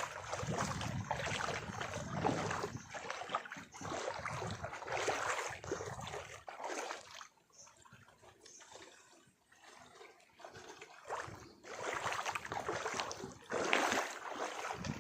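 Noisy rush of water and wind with no steady engine tone. It drops away for a few seconds in the middle, then comes back.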